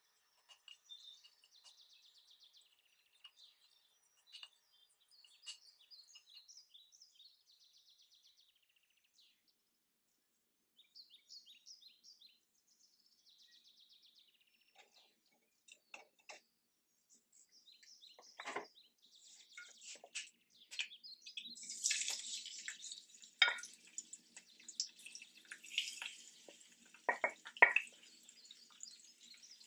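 Faint birds chirping in the background. About two-thirds of the way in, a tap starts running into a sink, with a few sharp knocks of things being handled.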